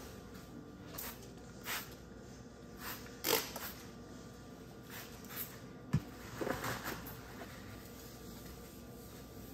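Powder cleanser being shaken from a canister onto a glass-top stove in a few short, separate shakes, followed by a dull thud about six seconds in and a brief rustle of handling.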